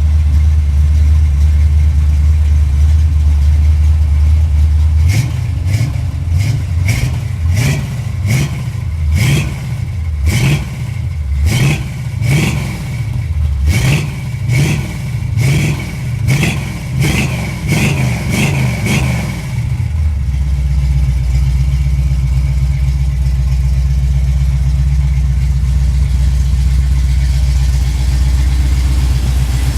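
1971 Chevy Nova's 383 stroker V8 idling, then blipped through a string of quick revs, about one a second, each rising and falling in pitch. It settles back to a steady idle about two-thirds of the way through.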